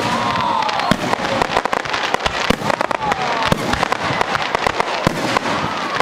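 Fireworks display: a dense, continuous barrage of launches, bangs and crackling from ground-fired fans of comets and aerial shells. A few gliding, falling tones sound through it at the start, about three seconds in and about five seconds in.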